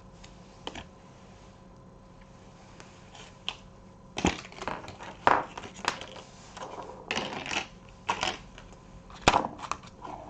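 Plastic packaging crinkling and crackling as it is handled and torn open, in an uneven run of sharp crackles and clicks starting about four seconds in.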